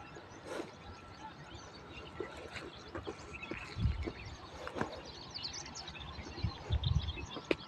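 Birds chirping, many short high calls, with low rumbling bumps about four seconds in and again near seven seconds, and a sharp click near the end.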